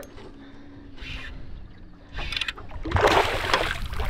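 Water splashing beside a boat as a hooked barramundi is fought to the side, much louder from about three seconds in. It is preceded by a few short, quieter splashes.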